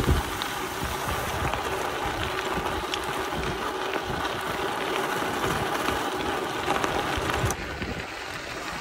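Steady rushing noise like wind on the microphone, changing in character and dropping a little about three-quarters of the way through.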